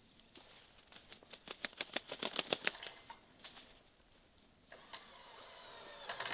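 Hooded crow rummaging and rolling in snow: a quick run of small dry clicks and crunches about one to three seconds in. Near the end comes a drawn-out cry that falls slightly in pitch.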